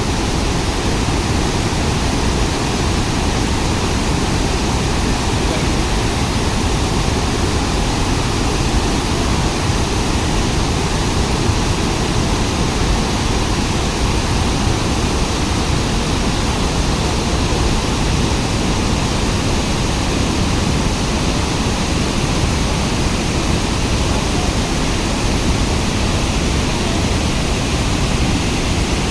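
Waterfall: water falling and splashing in a steady, even rush, loud and unbroken throughout.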